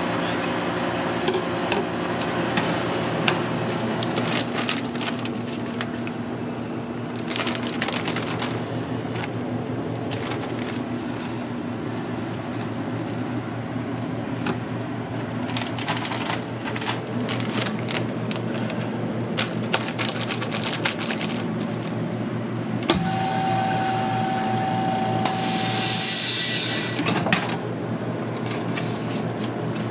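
Steady hum of kitchen machinery with scattered clicks and rustles as octopus pieces are bagged. About two-thirds of the way through, a steady beep-like tone holds for about three seconds, followed by a short hiss of air, typical of a chamber vacuum sealer finishing its cycle.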